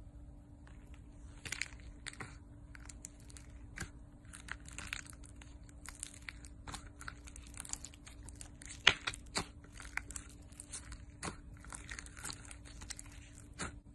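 Hands squishing, folding and pulling apart thick slime in a plastic tub: irregular sticky crackles and pops, with one loudest snap about nine seconds in.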